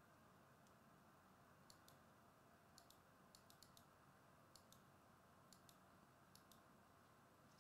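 Near silence: quiet room tone with about a dozen faint, sharp clicks, many in quick pairs.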